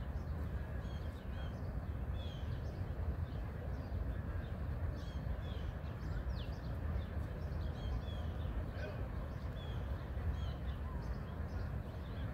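Small birds chirping in short, high calls, several at a time and repeating irregularly, over a steady low rumble.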